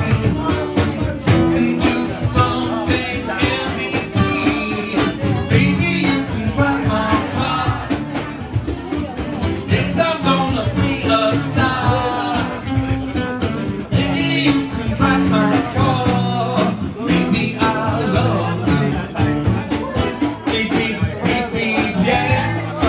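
Band music with a steady drum beat, guitar and a melody line that wavers and glides over it, in a rock-and-roll style.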